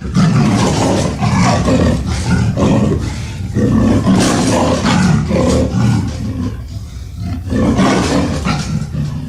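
Monster-movie Tyrannosaurus rex roar sound effect: loud, rough roaring that starts abruptly and swells and dips in several waves.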